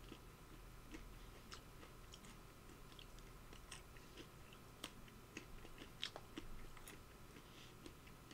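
Faint chewing of walnut halves: irregular small, crisp crunches and mouth clicks.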